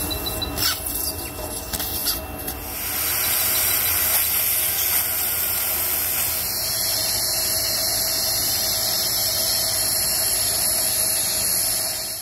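A few light clicks and scrapes of dental instruments. From about three seconds in, the steady hiss of surgical suction at the mouth.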